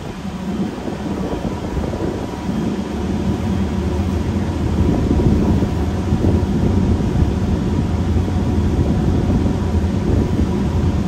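Passenger ferry underway: the engines run with a steady low drone under a continuous rush of wind and water.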